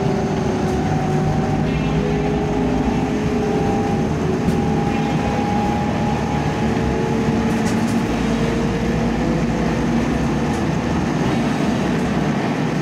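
Electric train running along the line, heard from inside the carriage: a steady rumble of wheels on track with a motor whine that drifts slowly up and down in pitch.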